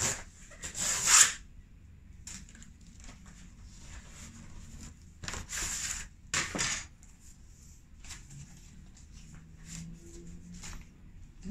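Cardboard mailer envelopes and paper being handled, sliding and rustling in several short scrapes, the loudest about a second in, with light taps in between.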